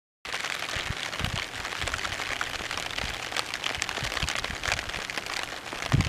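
Steady rain pattering, a dense patter of many small drops, with a few soft low thumps among them.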